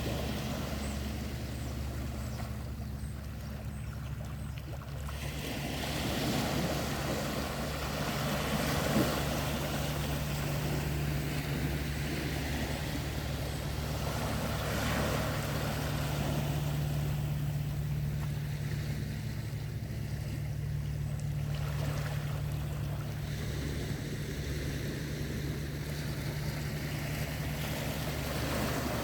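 Sea waves washing, swelling louder and fading back every several seconds, over a steady low hum.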